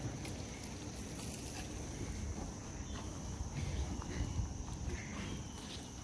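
Outdoor ambience of insects droning steadily at a high pitch, over a low, uneven rumble.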